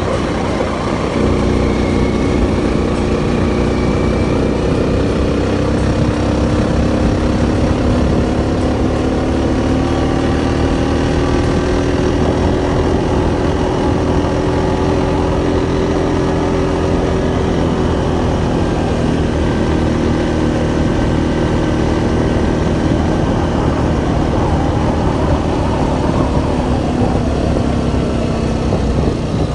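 Engine of a vehicle driving over grassland, running steadily with its pitch drifting slowly up and down as its speed changes, over a low rumble. The engine note comes in about a second in.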